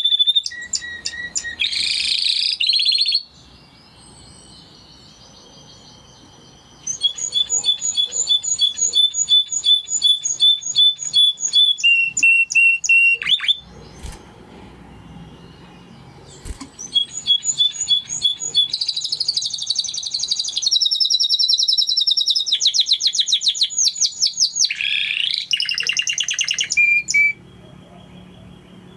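Spanish Timbrado canary singing in long phrases: runs of rapid repeated notes, fast trills and a short held whistle, with two pauses of a few seconds. The song stops near the end.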